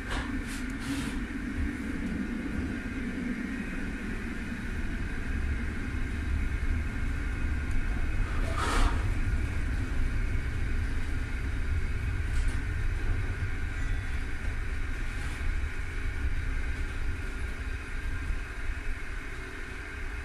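Cabin sound of a 1963 Düwag GT6 tram under way: a steady low rumble with a steady high whine over it, getting louder from about six seconds in. A couple of clicks come in the first second, and a short hiss comes about nine seconds in.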